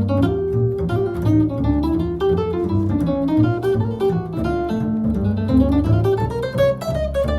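Jazz guitar improvising a solo of quick single notes that wander up and down, over plucked bass notes underneath.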